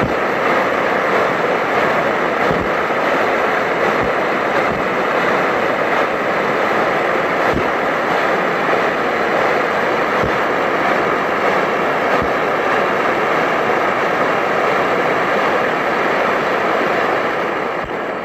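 Kovea Booster+1 dual-fuel stove burning pressurised liquid fuel (white gas), its preheated burner giving a loud, steady rushing sound. It quietens near the end as the fuel valve on the bottle is turned down.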